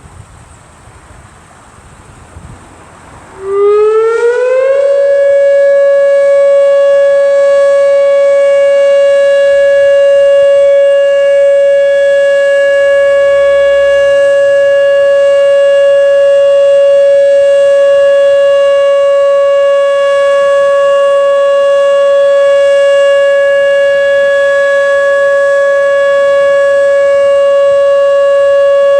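Whelen outdoor tornado warning siren starting about three and a half seconds in with a quick rising glide, then holding a loud, steady tone: the Alert signal of a siren test.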